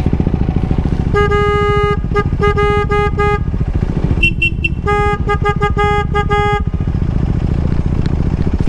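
Horn tooting in two runs of quick beeps, with a shorter, higher-pitched beeping between them, over a motorcycle engine running steadily.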